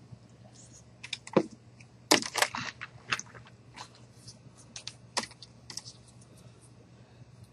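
Irregular clicks, taps and knocks of a stiff cardboard picture book being picked up and handled, with the loudest cluster about two seconds in and scattered lighter taps after.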